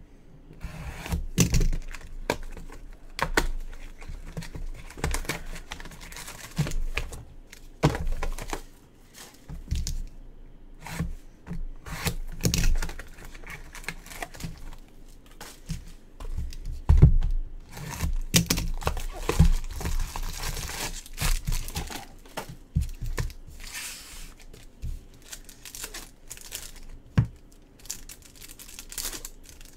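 Foil trading-card pack wrappers being torn open and crinkled by gloved hands, with scattered sharp knocks and taps as packs and cards are handled on the table.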